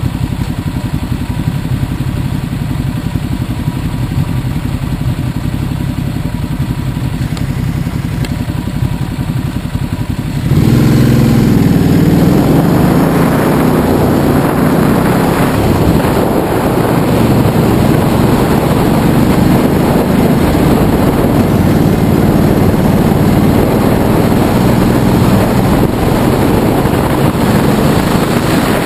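Ducati twin-cylinder motorcycle engines idling at a standstill. About ten seconds in, the camera bike's engine revs up as it pulls away and the sound jumps in loudness. It then runs on steadily at road speed with wind rushing over the microphone.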